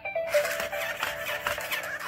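Toy robot dog playing an electronic tune through its built-in speaker: a short stepping melody that repeats about twice a second, with chirping, gliding electronic sound effects over it.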